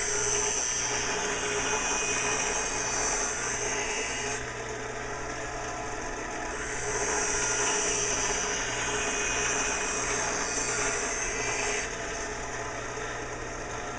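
Skate sharpening machine running, its grinding wheel (dressed for a 95/50 flat-bottom V) grinding a STEP BlackSteel runner's unground factory edge in passes to establish the hollow. The grinding hiss eases off about four and a half seconds in, comes back at about seven seconds, and eases again at about twelve seconds.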